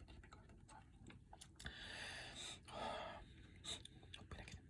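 Near silence in a small room, with a few faint breathy sounds from a person between about two and three seconds in.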